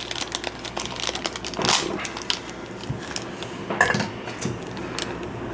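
Small plastic Num Noms toys clicking and knocking together as they are handled, with a couple of brief rustles.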